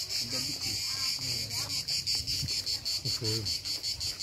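A steady, high-pitched insect chorus pulsing rapidly and evenly, with faint voices in the background.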